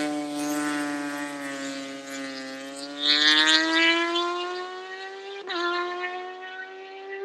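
Kawasaki ZX-10R inline-four with an M4 slip-on exhaust, heard from a distance as it pulls away hard after a launch. Its note climbs steadily through the gears, with a brief dip at an upshift about five and a half seconds in and another near the end.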